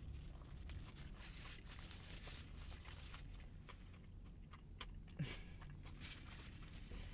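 Close-up mouth sounds of someone chewing and biting a turkey sub sandwich with lettuce: small soft crunches and wet clicks, with one brief louder mouth sound about five seconds in.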